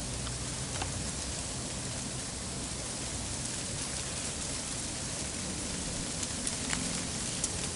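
Freezing rain falling steadily during an ice storm: an even hiss of precipitation with a few sharp ticks of drops striking close by, most of them near the end.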